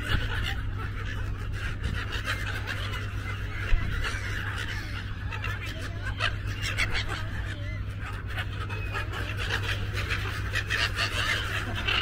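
A large flock of gulls calling, with many short cries and squawks overlapping throughout, over a steady low rumble.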